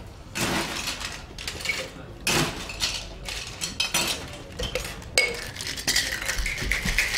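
Steel shaker tin and mixing glass of a Boston shaker clinking and clattering as they are handled and fitted together: a few separate knocks, then a denser continuous rattle in the last second or so as the shaker is worked.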